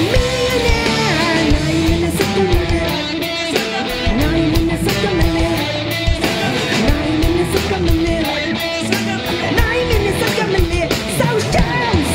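Live rock band playing loudly: electric guitar over bass, keyboards and drums, with a woman singing a wavering melody line.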